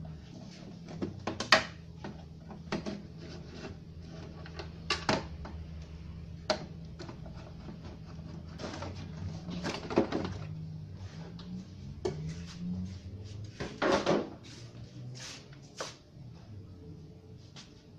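Hands and a screwdriver working on a CRT television's plastic back cover and chassis: scattered clicks, knocks and rattles of plastic and metal, the loudest about a second and a half in and near 14 seconds, as the cover is lifted off and the circuit board pulled out.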